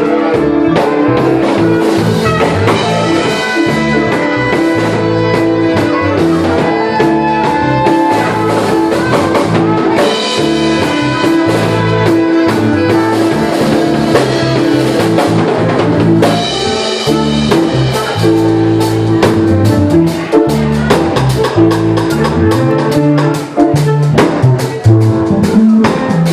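Jazz fusion band playing live: drum kit and a moving bass line under held chords, with the drums becoming choppier near the end.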